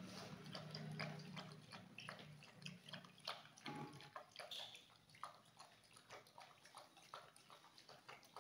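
German shepherd lapping milk from a stainless steel bowl: a quick, irregular run of wet laps and small splashes, growing fainter after about five seconds.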